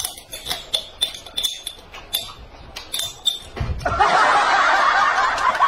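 Light clinks and taps of tableware and a glass jar, then loud laughter setting in about four seconds in.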